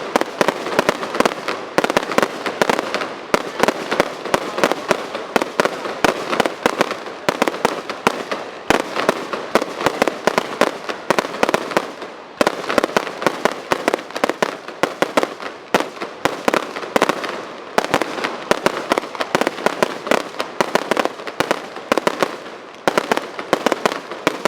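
Fireworks display: a dense, continuous run of sharp bangs and crackles, many each second, easing briefly about halfway through and again near the end.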